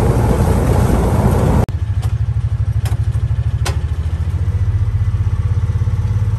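A vehicle drives along a gravel road with a loud, rough rumble. About a second and a half in, this cuts to a diesel tractor engine idling with a steady, even low throb, and a few light clicks over it.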